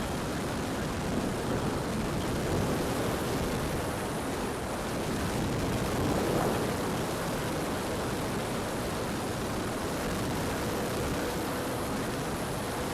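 Steady rushing noise with the faint drone of an aircraft engine, swelling slightly about six seconds in; a faint steady hum comes in near the end.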